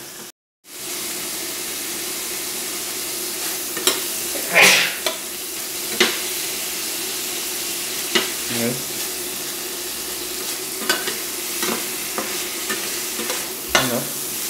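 Chicken intestines and shallots sizzling as they stir-fry in a metal pan, with a metal spatula scraping and clinking against the pan at irregular intervals. The sound cuts out for about half a second just after the start.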